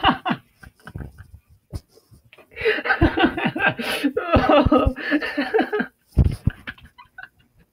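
A young man laughing hard: a burst at the start, then a long fit of laughter from about two and a half to six seconds in, and one more short laugh just after.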